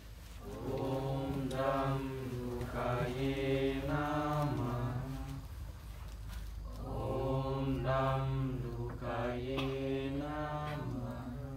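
A mantra chanted in long sung phrases over a steady low drone. One phrase fades about five seconds in, and the next begins about two seconds later.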